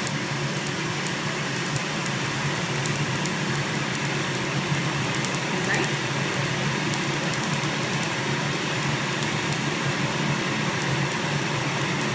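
PicoSure picosecond laser firing on tattoo ink: runs of quick, faint snapping ticks from the pulses, over a steady fan hum.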